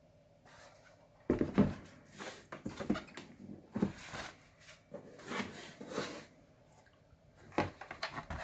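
Rustling and light knocks as a laptop and its packaging are handled, with a sharp knock just over a second in and another near the end.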